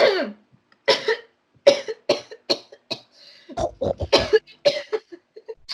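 A person coughing in a string of short, hard fits, with a denser cluster of coughs near the middle, breathless from laughing too hard.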